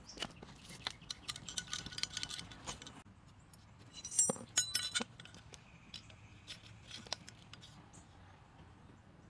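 Metal parts of an aluminium slingshot frame and a folding hex key being handled: a quick run of small clicks and scrapes for about three seconds, then a few sharp, ringing metal clinks about four to five seconds in, and a few scattered taps after.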